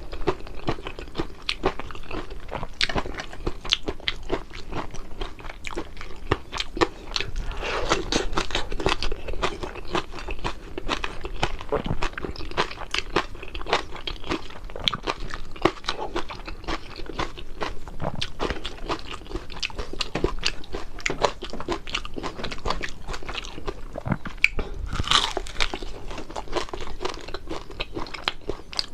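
Close-miked crunching and chewing of crispy fried fish, a steady run of crackling bites and chews with a louder crunch near the end.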